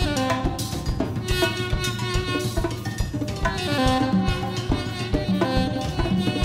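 Instrumental jazz: a saxophone plays a line of changing notes over a busy drum kit and hand percussion.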